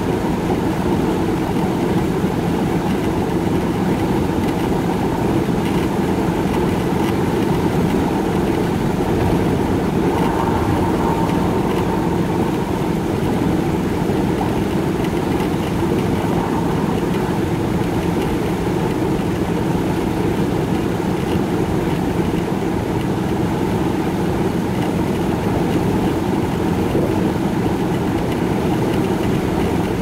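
Steady drone of a car's engine, tyres and wind at highway cruising speed, heard from inside the cabin.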